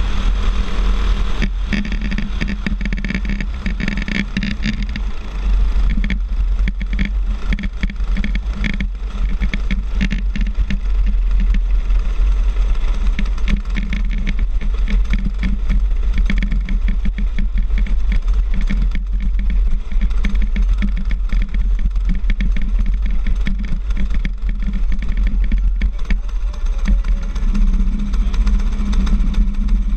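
Racing go-kart's small engine running hard around a dirt oval, heard from the driver's helmet with heavy wind rumble on the microphone.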